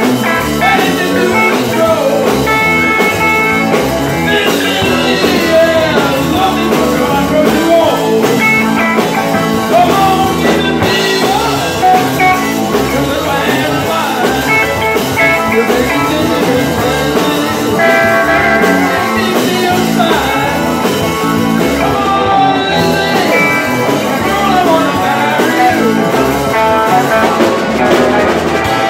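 Live rock-and-roll band playing loudly and steadily, with electric guitar and electric bass.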